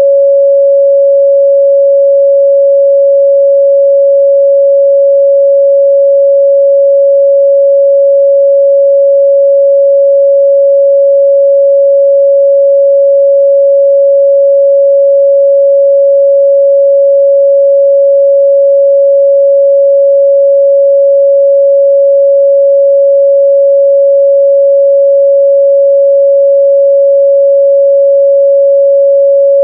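A steady, loud 557 Hz sine-wave test tone, one pure unchanging pitch in the midrange.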